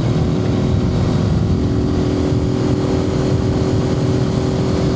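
Suzuki TU250X's single-cylinder four-stroke engine running at a steady cruising speed, with an unchanging pitch and a dense low rumble underneath, heard from a microphone inside the rider's helmet.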